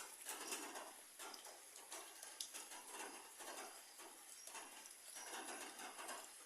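Faint rain falling on papaya leaves, a steady hiss that swells and eases unevenly about once a second.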